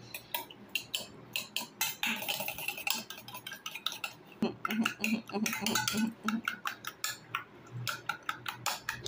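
A metal spoon beating eggs in a small stainless-steel bowl, clicking quickly and unevenly against the bowl's sides and bottom.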